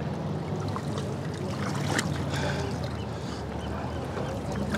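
Lake water sloshing and dripping as a soaked blanket is hauled out by hand, over a steady low drone, with a single light click about two seconds in.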